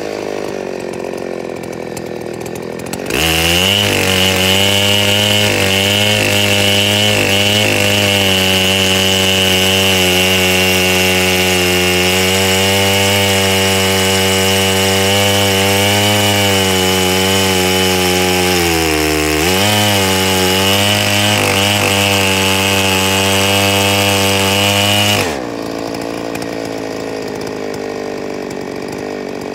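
Neotec 8105 two-stroke chainsaw on a chainsaw mill, ripping the first pass along a log. It idles, is throttled up about three seconds in and runs steadily at high revs under load, sagging briefly about two-thirds of the way through. Near the end it drops back to idle.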